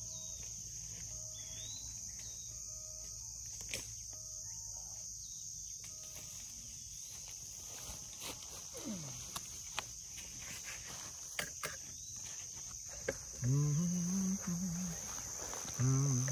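Crickets chirring in a steady, high, even drone throughout, with scattered short clicks and knocks in the second half. Near the end come two louder bouts of low grunting.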